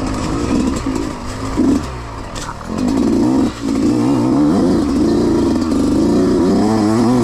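Dirt bike engine revving up and down under throttle, dropping off briefly about three and a half seconds in, then held at fairly steady revs.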